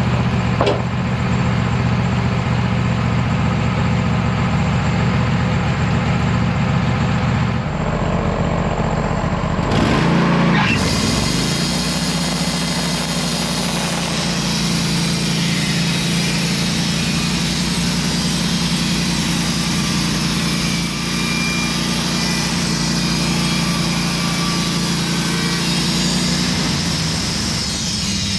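Portable band sawmill's engine running steadily under work. About ten seconds in, its pitch dips briefly and then recovers.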